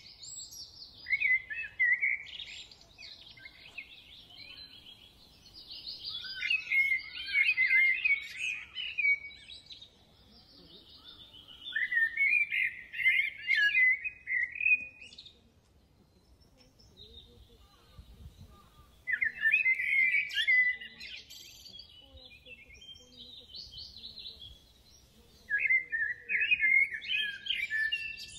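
Small songbirds singing in rapid twittering, warbling phrases of two to three seconds each, about five phrases with quieter gaps between.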